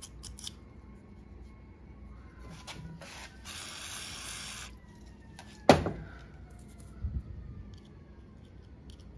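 A sticking part of a plastic carburetor being cleaned and handled: a few light clicks, a hiss lasting about a second a little past the middle, then a sharp knock, the loudest sound, and a softer thump a second later.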